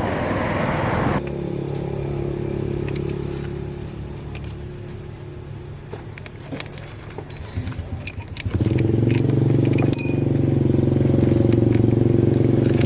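Engine running steadily, likely the Kubota engine of the wooden truck, easing off in the middle and then picking up again louder about two-thirds of the way through. There are a few light metallic clinks in between.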